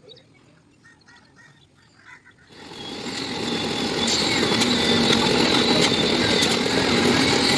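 Faint bird chirps, then about two and a half seconds in an engine-driven machine comes in and builds over a second or so to a loud, steady run with a steady hum.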